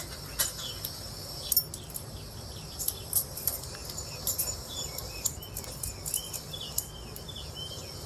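Cockatiel pecking and crunching pellets with its beak: irregular sharp clicks and cracks. From about halfway there are also many short, soft bird chirps.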